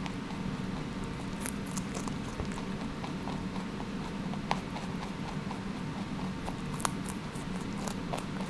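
Wood fire burning as the wood catches, with irregular sharp crackles and pops over a steady low rumble; the sharpest pops come about four and a half seconds in and again near seven seconds.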